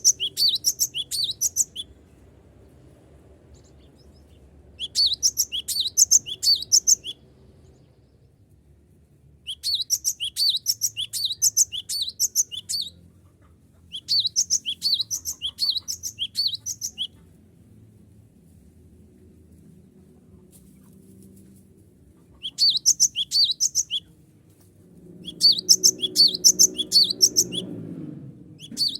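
Cinereous tit (gelatik batu) singing in repeated bouts of rapid, high chirping notes. Each bout lasts two to three seconds with pauses between, six bouts in all. A low rumble rises in the background near the end.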